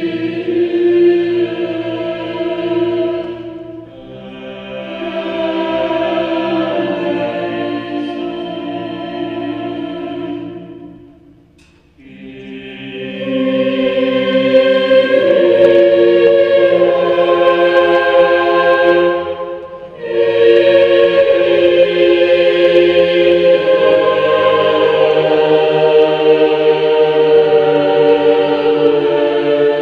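Choir singing slow, held chords in long phrases. The sound fades almost to nothing about twelve seconds in, then swells back, with a brief dip again at about twenty seconds.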